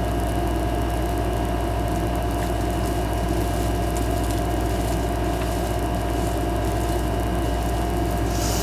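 Steady low mechanical hum with a faint constant whine above it, unchanging, as from a running room appliance.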